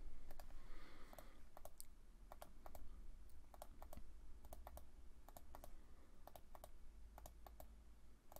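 Computer mouse clicking repeatedly, mostly in quick pairs of clicks, as line after line is picked and offset in a CAD drawing.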